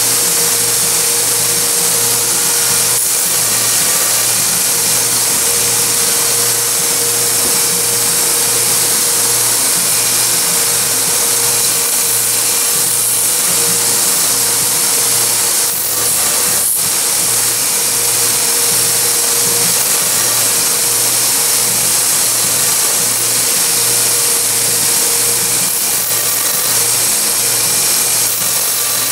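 Small bench belt grinder running steadily while a neck knife's epoxied handle scales are held against the sanding belt and ground down. A steady whine sits over a low hum that pulses evenly, a little under twice a second.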